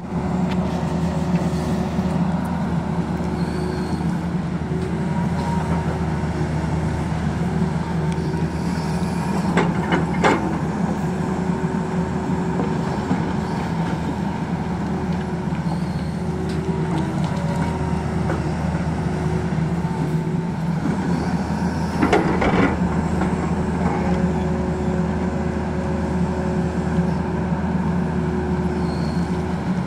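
Tata Hitachi hydraulic excavator's diesel engine running steadily under working load, with a whine that comes and goes as the boom and bucket move. The steel bucket scrapes and knocks against rock twice, about ten seconds in and again about twenty-two seconds in.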